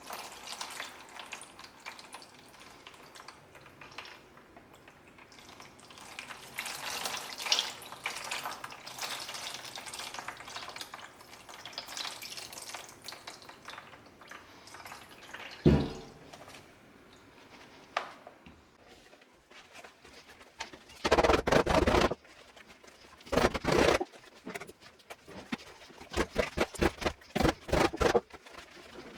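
Water sloshing and dripping as a leather softball glove is soaked in a tub of hot water as the first step of breaking it in. About sixteen seconds in there is a single thump, and in the last third come several loud bursts of handling noise.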